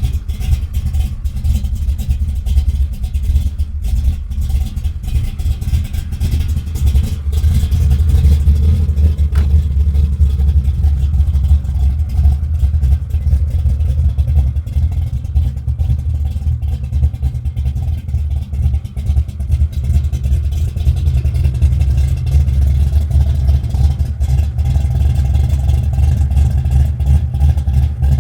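The 800-horsepower Scott Shafiroff engine in a 1970 Chevelle running steadily with a deep, loud exhaust note.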